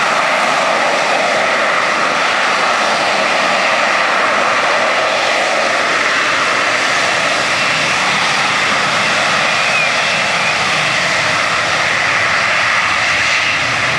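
Harrier jump jet's Rolls-Royce Pegasus turbofan running at hover power as the jet hangs and descends for a vertical landing: a loud, steady jet rush with a thin high whine.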